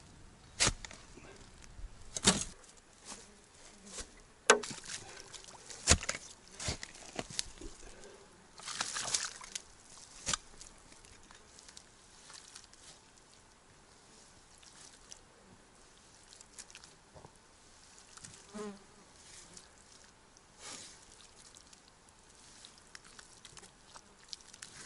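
Shovel striking earth and stones in a series of sharp knocks, with a scraping rush near the nine-second mark, then quieter handling sounds. Flies buzz through it all.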